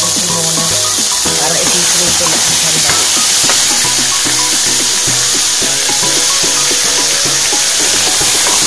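Boiled chicken pieces and chicken feet sizzling in hot oil with chopped garlic in a stainless steel pan as they are sautéed and stirred, a steady frying hiss. Background music plays under it.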